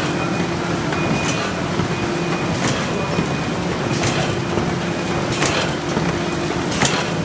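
Bobst folder-gluer running: a steady mechanical hum of belts and rollers, with a sharp clack about every one and a half seconds.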